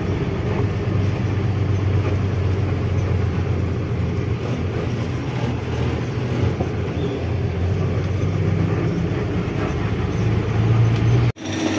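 Twelve-wheel truck's diesel engine running steadily on the road, a low drone with road noise. It cuts off abruptly near the end.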